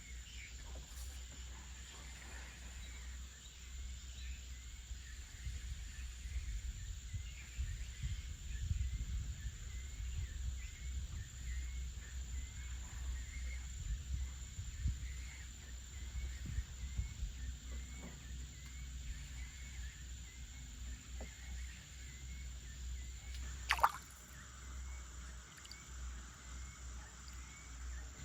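Outdoor animal chorus: a short chirp repeats about once a second over a steady high-pitched whine, with low rumble underneath. There is one sharp click about 24 seconds in.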